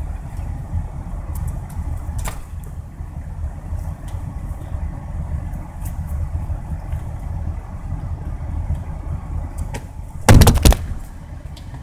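Car engine idling, heard from inside the cabin as a steady low rumble. About ten seconds in there is one loud thump lasting about half a second.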